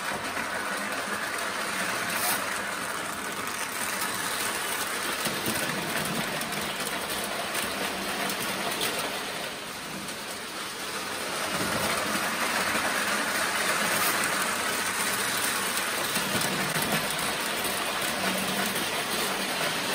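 Prewar Lionel O-gauge electric toy train running on its track, a steady rolling noise that grows louder a little past halfway as it comes close and passes.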